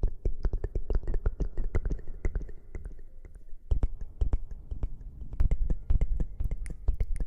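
Close-miked ASMR rustling: a rapid, irregular stream of crackles and soft taps against the microphone, with heavy low thumps, easing off briefly about halfway through.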